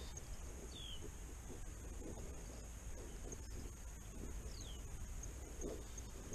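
Quiet outdoor background with faint birdsong: two short, high falling chirps, about a second in and again a few seconds later, over a thin high note repeating at an even pace.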